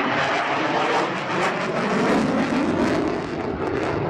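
F-16 fighter jet flying past: a loud engine roar that swells just before the start, holds, and begins to fade near the end.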